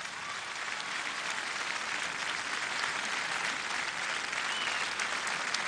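Large audience applauding steadily at the end of a song, the clapping swelling a little in the first second.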